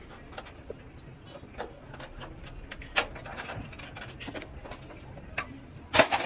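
Sheet metal on a truck radiator clinking and knocking as pliers work at the fan shroud. Two louder metal knocks come about three seconds in and near the end.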